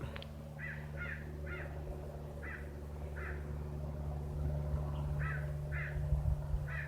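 A crow cawing, about eight short caws in two groups with a pause of about two seconds between them, over a steady low hum.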